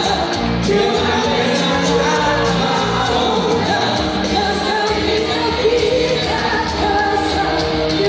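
Live festival band playing amplified pop music, with a lead singer over the backing instruments.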